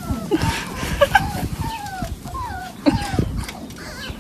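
Jack Russell terrier puppy whimpering: a string of short, high whines, several a second, that fall in pitch.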